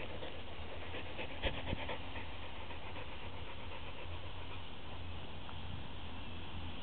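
Dog panting close to the microphone, with a couple of short clicks about a second and a half in.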